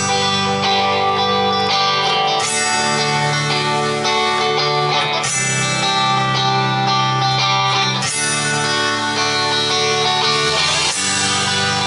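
A live rock band playing the opening of a song on strummed acoustic guitar, electric guitar and bass guitar, with the chords changing every two to three seconds.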